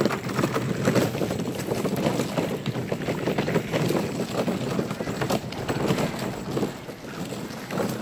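Plastic kids' wagon rolling over a gravel path: a continuous crunching rattle of its wheels on the stones.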